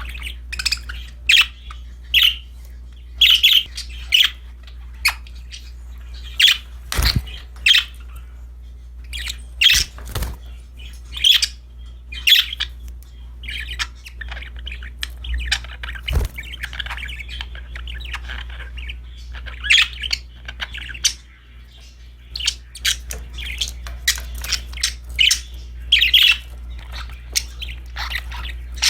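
Budgies (budgerigars) calling: a stream of short, sharp chirps and squawks, several a second at times, with a stretch of softer continuous chatter partway through. A steady low hum runs underneath.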